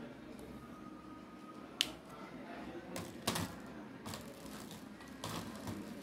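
Several sharp clicks and knocks, the first about two seconds in, then a cluster in the middle and more near the end: a felt-tip marker being handled and set down.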